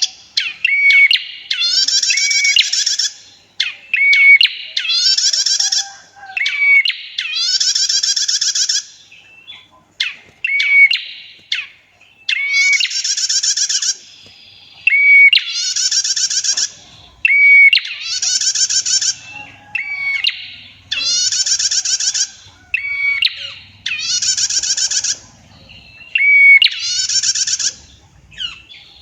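Prenjak (prinia) singing: a short clear whistle, then a long rapid trill of about a second, repeated about every two seconds.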